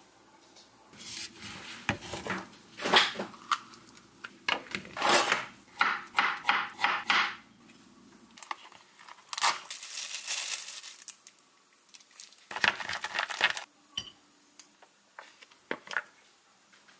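Food-preparation sounds in short bursts: plastic packaging crinkling and tearing, a knife cutting avocado on a wooden cutting board, and a ceramic plate clinking.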